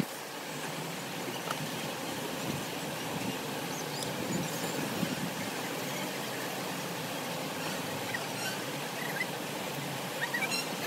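Steady rushing of river water, with a few faint high chirps above it.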